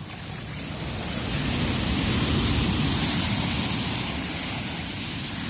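Seawater surge rushing and foaming through a narrow channel between rocks, swelling over the first second or so and easing slightly near the end.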